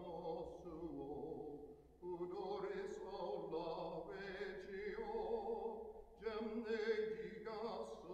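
Slow sacred singing, chant-like, with a wavering vibrato, sung in long phrases broken by short pauses about two seconds in and again near six seconds.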